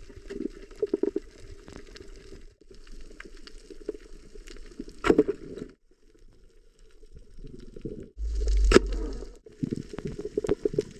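Underwater sound around a freediving spearfisher on a coral reef, picked up underwater: a muffled water hiss with scattered clicks and crackles, breaking off and starting again several times. About eight seconds in, a low rumble with one sharp click is the loudest moment.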